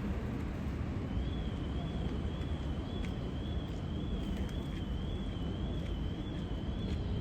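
Urban outdoor ambience: a steady low rumble of distant traffic. About a second in, a faint high whine starts and stays at one pitch, wavering slightly about twice a second.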